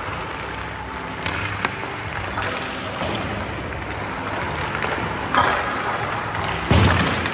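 Hockey shooting drill on ice: a few sharp clacks of stick and pucks, then two louder hits about five and a half and almost seven seconds in as pucks are shot at the goaltender, over a steady hiss.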